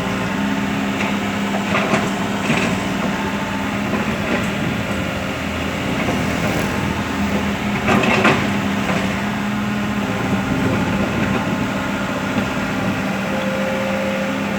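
KOBELCO Yutani hydraulic excavator's diesel engine running steadily, with a few short knocks and clatters while it digs soil. The loudest clatter comes about eight seconds in.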